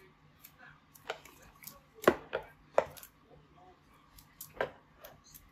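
A laptop power adapter brick being handled and unwrapped by hand, giving a handful of sharp clicks and knocks at irregular intervals; the loudest come about two seconds in.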